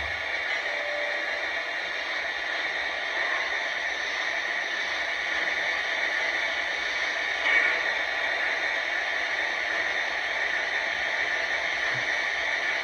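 Steady hissing from a Lionel Vision Line GS-4 O-gauge steam locomotive sitting powered up with its sound system and smoke units running, with no chuffing rhythm. There is a brief swell in the hiss about seven and a half seconds in.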